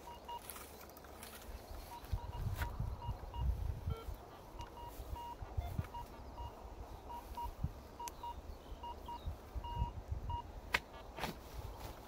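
Metal detector giving many short beeps at one pitch, spaced irregularly, signalling metal under the search coil. Low rumbling underneath and two sharp clicks near the end.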